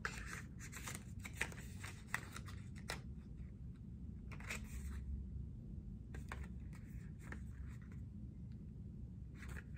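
Small cosmetic product packaging being handled and opened: soft, scattered rustling, scraping and light clicks of cardboard and plastic, with a couple of sharper ticks about a second and a half and two seconds in.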